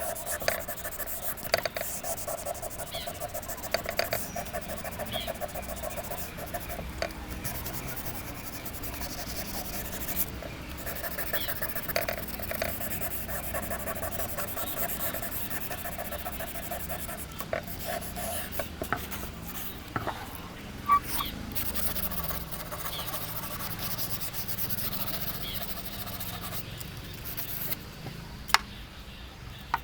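Sandpaper rubbed back and forth by hand over the rusty steel blades of grass shears, scouring off the rust in steady repeated strokes. A few sharp knocks near the end.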